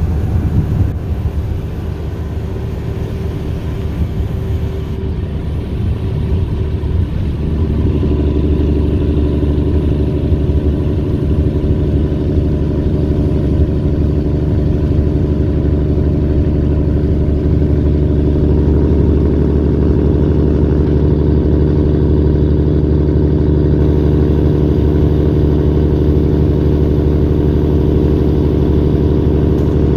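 Diesel engine of a loaded 2011 Peterbilt semi truck, heard from inside the cab. The sound dips briefly about two seconds in and builds as the truck gets up to speed, then settles into a steady, even engine hum with tyre and road noise.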